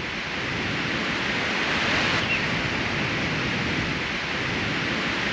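Steady rush of small Caribbean waves breaking on a sandy beach.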